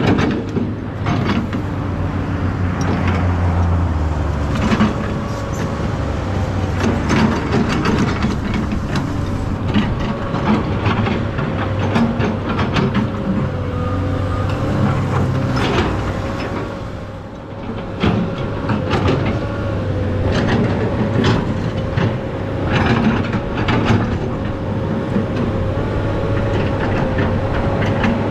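SANY SY215C hydraulic excavator working: its diesel engine and hydraulics run steadily with a constant whine, while clanks and knocks from the digging gear come repeatedly. The engine eases off briefly about two-thirds through, then picks up again.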